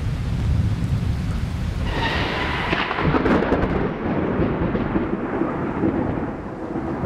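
Thunder rumbling low with rain falling. About two seconds in, a louder rushing noise comes in over it while the rumble thins.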